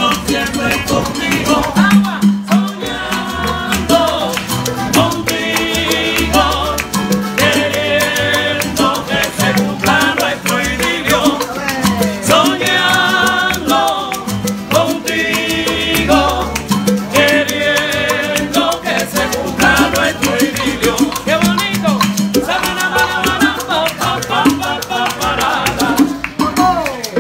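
Live Cuban son band playing: acoustic guitars, bongos and maracas in a steady, lively rhythm.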